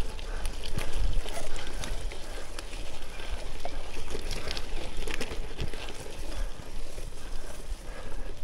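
Gravel bike rolling along a wet gravel-and-dirt track: tyres crunching over stones with many small clicks and rattles from the bumps, over a steady low rumble of wind on the microphone.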